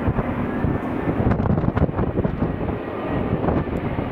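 Boeing 747's four jet engines at high thrust as the jet climbs away, a deep uneven rumble with wind buffeting the microphone.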